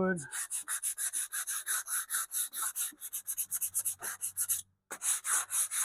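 Sandpaper rubbed back and forth by hand on the stripped wooden cabinet of a Philco Model 70 radio. The quick, even strokes run about five a second, with a brief stop near the end.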